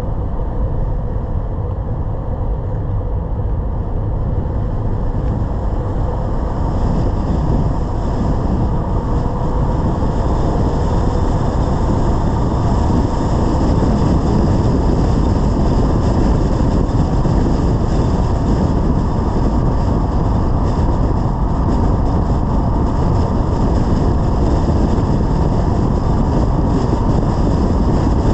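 BMW 330i driving along the road: a steady, deep rush of tyre, wind and engine noise that grows louder over the first dozen seconds, then holds.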